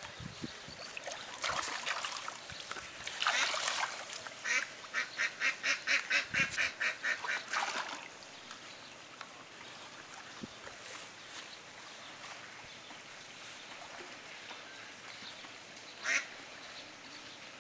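A duck quacking in a quick run of about a dozen quacks, with water splashing as a cast net is hauled in by hand through shallow pond water.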